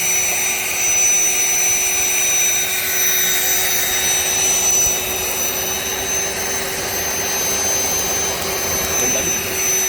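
Electric air pump running steadily, with a constant whine over a rush of air, blowing onto barbecue charcoal to revive a fire that is dying down.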